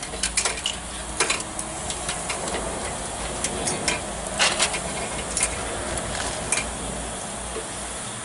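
Metal poker and pliers scraping and clinking against the hot firebox grate bars of a 5-inch gauge live steam Standard Class 4 model locomotive as the fire is drawn and the bars are pulled out one by one: about ten scattered clinks over a steady hiss.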